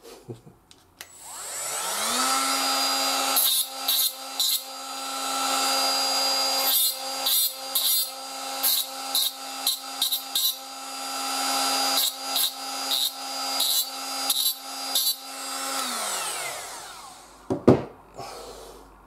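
Small handheld rotary grinder spinning up about two seconds in, running at a steady high whine, and spinning down near the end. While it runs, its disc is touched again and again to the cut edge of a steel flat bar to deburr it, giving short, uneven grinding scrapes. There is a single knock shortly after it winds down.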